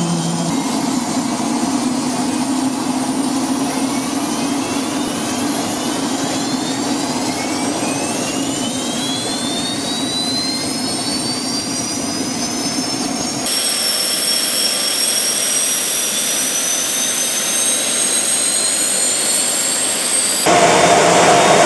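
Home-built turbocharger-type gas turbine engine running, with a high whine that climbs in pitch as it spools up. The sound changes abruptly twice, about two-thirds of the way in and near the end, to a steadier high whine and then a lower, louder run.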